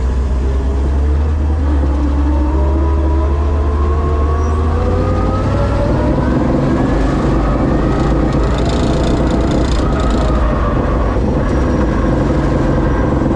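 Monster truck's engine heard from inside the cab as it drives, its pitch climbing over the first several seconds as it picks up speed and then holding steady.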